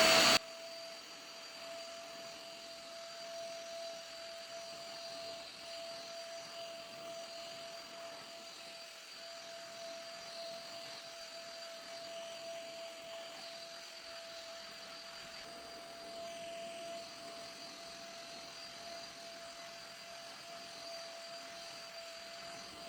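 Vacuum cleaner motor running steadily with a constant whine while it sucks up dirt. It drops sharply in loudness about half a second in.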